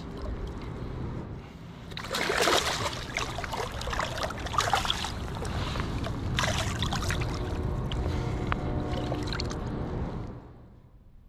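River water rushing and splashing in uneven surges, dropping away shortly before the end.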